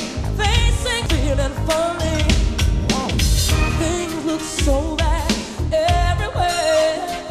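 Pop song with a female singing voice over a steady drum beat.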